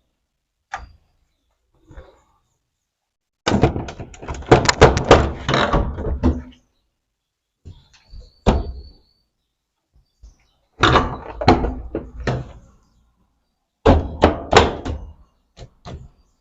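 Clusters of hard plastic knocks and clunks as the washing machine's top cover is pushed and rocked into its clips, four bursts with short pauses between.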